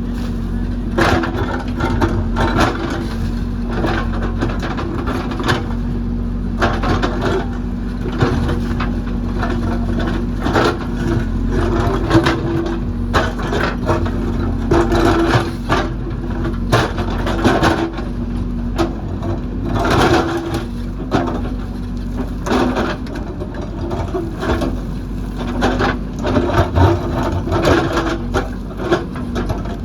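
JCB backhoe loader's diesel engine running steadily under load, with frequent sharp cracks and crunches of rock and soil as the bucket digs and scrapes.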